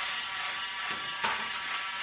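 Background music with sustained notes, with a short knock a little over a second in.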